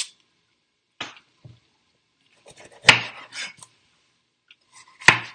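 Chef's knife cutting a red bell pepper on a wooden cutting board: a few sharp knocks of the blade on the board, the loudest about three seconds in and another just before the end.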